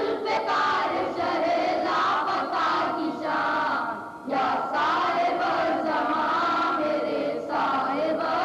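A group of boys singing a devotional Urdu manqabat together, with a short break about four seconds in.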